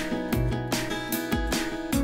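Background music: a strummed acoustic guitar with a steady beat.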